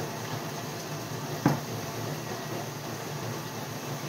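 Dishwasher running in the background, a steady hum and hiss, with one sharp knock about a second and a half in as a drinking glass is set down on a wooden table.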